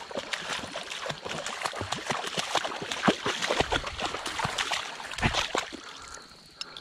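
Shallow water splashing and sloshing as it is waded through, in irregular splashes that die down near the end.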